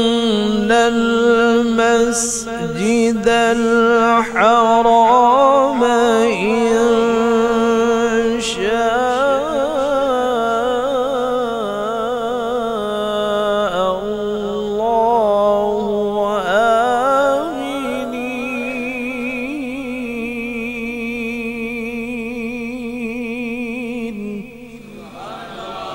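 A man reciting the Quran in the melodic tajweed style, holding long, ornamented notes. The voice stops a second or two before the end.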